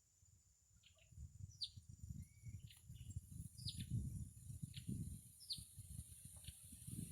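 Small songbirds chirping: short high notes that slide downward, roughly one a second, over a low, uneven rumble.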